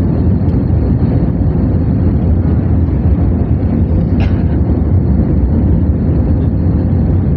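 Airplane noise: a steady, loud low rumble with a faint, steady high whine above it. There is one brief short sound about four seconds in.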